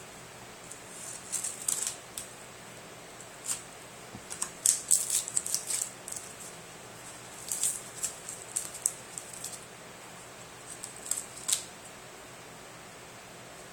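Clear plastic packing tape on a cardboard box crinkling and crackling in short scattered bursts as fingers pick at and peel its edge, with small clicks.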